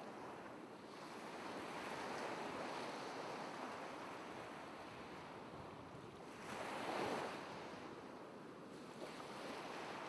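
Ocean waves washing in a slow, even rush that swells and fades, with the loudest surge about seven seconds in.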